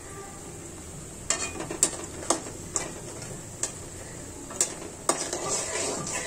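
Snacks frying in oil in a pan, turned and stirred with a utensil: a run of sharp knocks of the utensil against the pan, then a busier stretch of sizzling and scraping near the end.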